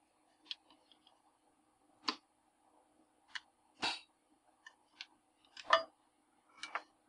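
Light, sharp clicks and taps, about eight of them at uneven intervals, from metal tweezers and a small circuit board being handled on the work surface while an SMD LED is positioned. A faint steady hum runs underneath.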